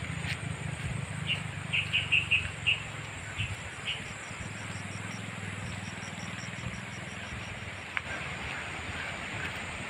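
Rural outdoor ambience: a bird gives a series of short chirps from about one to four seconds in. A faint, rapid, high ticking trill follows, all over a steady low rumble.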